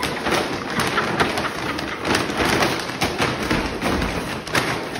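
A large bag rustling and scraping over a tile floor with a dog's head stuck inside it, with many knocks and thumps as the bag bumps into things.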